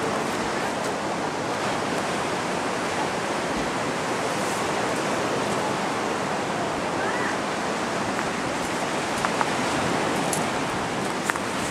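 Steady, even rushing noise with no pitch, with a few faint short clicks near the end.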